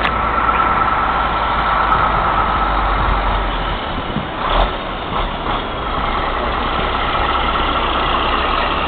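Heavy diesel vehicle engine running steadily in deep snow, its low rumble easing about four seconds in.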